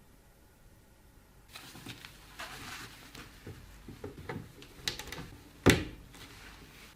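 Hands handling computer parts and packaging: irregular rustling and small clicks start about a second and a half in, with one sharp knock near the end.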